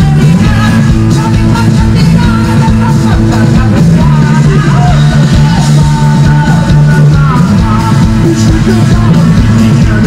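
A live band playing a loud song with a woman singing lead into a microphone, backed by electric guitars, bass, cello and drums.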